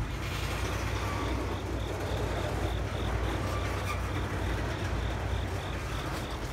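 Freight train's boxcars rolling past: a steady rumble of wheels on the rails with a constant low hum underneath.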